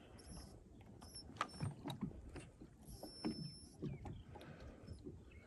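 Faint scattered clicks and soft knocks of fishing gear being handled in a small boat.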